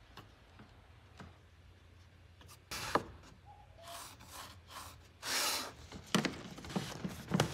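Hand-handling noises on a router table: scattered knocks, then a short loud scrape about five seconds in and a run of quick rubs and clicks near the end, as a ribbed plastic dust-collection hose is worked into its port.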